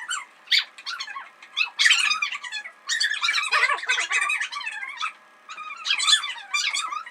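Children squealing and shrieking in high-pitched bursts, with a short lull about five seconds in.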